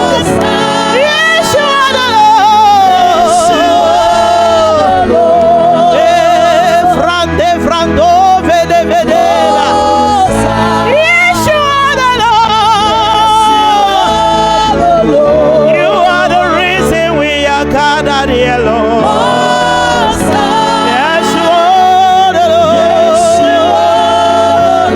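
Loud music with singing: a voice holds long, wavering, gliding notes over steady instrumental accompaniment.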